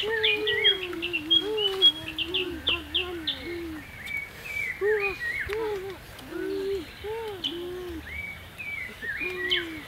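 Forest birds calling: a quick run of high chirps in the first few seconds, over repeated short, arching lower calls.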